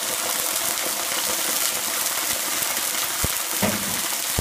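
Tomato sauce sizzling in a hot frying pan of olive oil and garlic, a steady crackling hiss. Two short sharp knocks come near the end.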